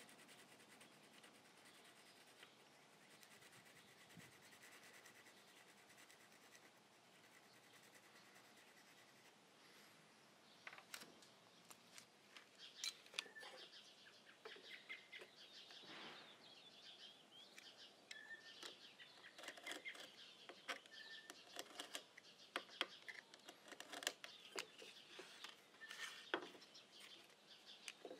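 Faint hand work on a wooden tabletop, mostly near silence at first. From about ten seconds in come repeated scratching and rubbing strokes, with a few short bird chirps in the background.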